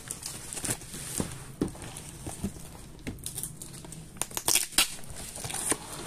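Handling noise of a camouflage fabric gun bag: rustling with scattered clicks and knocks, and a quick cluster of sharp knocks a little past four seconds in.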